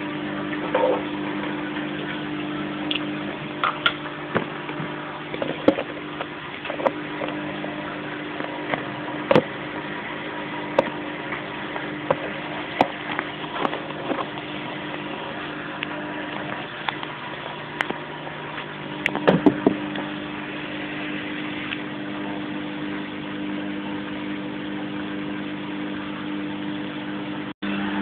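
Fagor front-loading washing machine on its spin cycle: the motor and spinning drum give a steady hum, with scattered sharp clicks and knocks from the load and a brief cluster of knocks about two-thirds of the way through.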